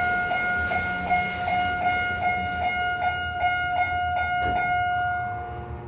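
Elevator door nudging buzzer sounding steadily, a single high buzz with a slight pulse about two or three times a second. It means the doors were held open too long and are being forced shut. A knock comes about four and a half seconds in, and the buzz stops near the end.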